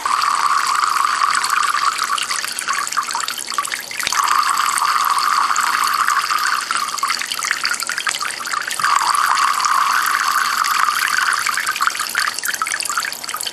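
Thin water streams from a homemade Kelvin water-dropper falling into cans below, a steady splashing trickle like a running tap. The sound dips briefly twice, about four seconds in and again about eight and a half seconds in.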